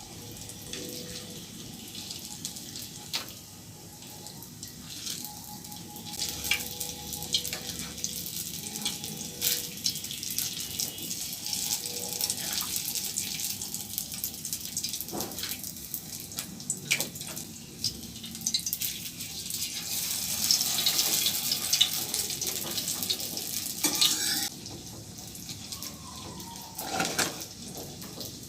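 Water running from a tap, splashing over things being washed, with knocks and clinks of items handled in the water. The flow is heaviest about two-thirds of the way through and eases off near the end.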